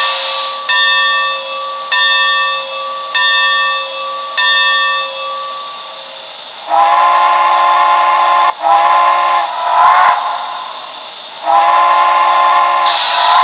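Sound decoder of an HO-scale Santa Fe 2-10-2 steam locomotive model playing its recorded locomotive bell, struck about once a second and ringing on for the first five seconds. Then its steam whistle blows in four chime blasts, the first and last long, and a hiss comes in near the end under the last blast.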